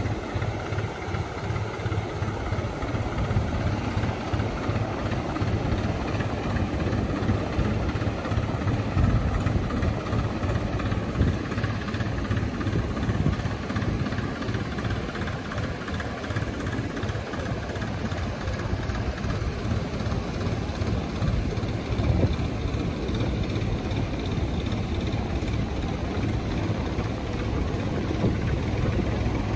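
New Holland tractor's diesel engine running steadily under load, towing a boat trailer by cable across wet sand, over the wash of breaking surf.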